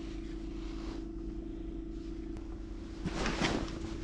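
Steady low mechanical hum at one even pitch, with a brief rustle of handling noise about three seconds in.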